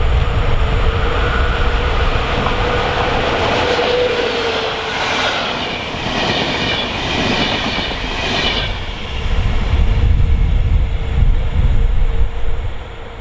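PKP Intercity EP07 electric locomotive and its passenger coaches passing close at speed: a rush of wheel-on-rail noise, with the wheels clattering over the track for several seconds in the middle before the train is gone. Wind rumbles on the microphone at the start and again near the end.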